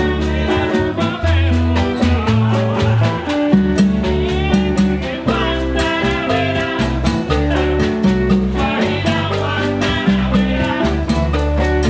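Cuban salsa band playing: a woman singing over electric guitars, congas and shakers, with a steady percussion beat.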